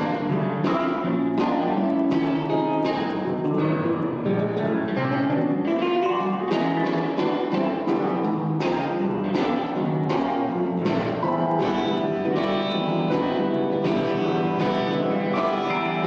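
Live acoustic guitar playing a steady, rhythmic instrumental introduction to a song.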